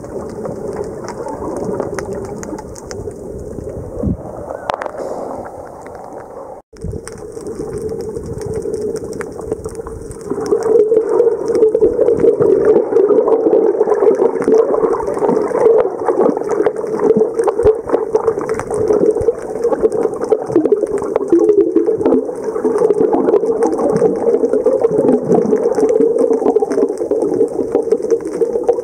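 Muffled underwater noise from a camera beneath the surface: a steady low hum full of crackling and bubbling. It drops out for an instant about seven seconds in and gets louder from about ten seconds.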